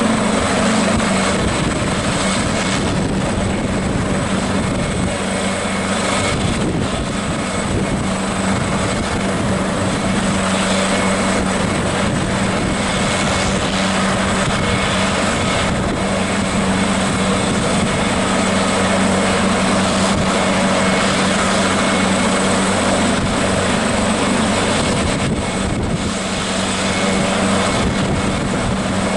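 AgustaWestland AW139 helicopter running steadily on the ground, its twin turboshaft engines and rotor turning at a constant speed. A steady rotor thrum sits under a thin, high turbine whine.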